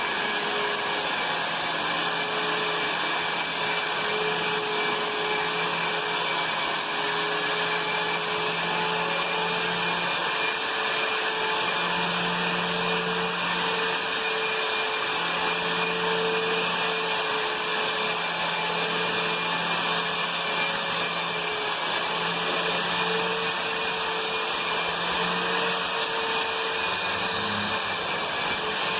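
Nauber electric wall sander running steadily, its motor and built-in dust-extraction turbine giving a continuous whine and rush of air while it sands. The pitch wavers slightly as the pad is worked.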